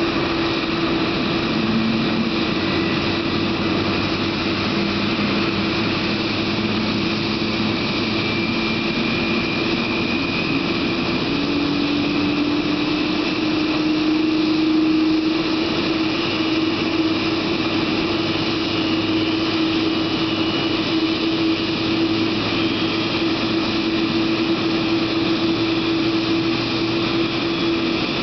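Boeing 787 Dreamliner jet engine whining as the number 2 engine spools up during its start: a lower tone rises in pitch about ten seconds in and settles just under a steady whine that runs throughout, over a constant rushing noise.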